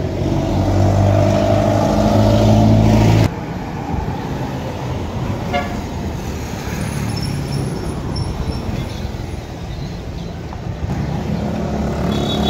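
Street traffic: a vehicle engine running loudly for the first three seconds or so, cutting off suddenly, then quieter traffic noise with one brief horn toot about five and a half seconds in. Engine sound rises again near the end.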